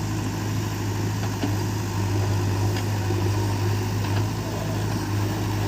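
Heavy diesel engine idling steadily, a constant low hum with no revving.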